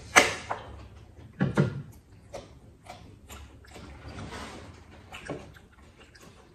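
Eating and drinking sounds: a sharp clink of a fork against a plate just after the start, then a couple of short mouth sounds about a second and a half in, and a few faint ticks of cutlery.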